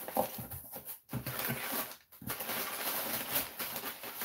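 Packing material crinkling and rustling as it is handled and pulled from a shipping box, with two short pauses about one and two seconds in.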